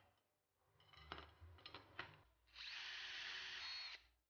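A few light clicks, then a power drill runs steadily for about a second and a half near the end.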